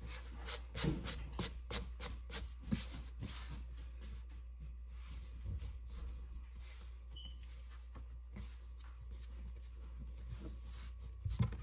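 Rubbing and scraping sounds of hands-on kitchen work: a quick run of short scratchy strokes in the first few seconds, then fainter, sparser ones, over a low steady hum.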